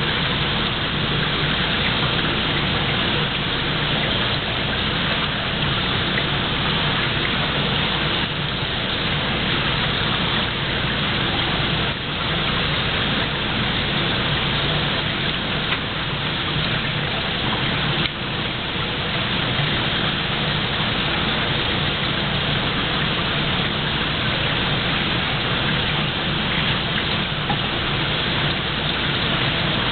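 Steady rushing hiss, like running water, with a low hum beneath it.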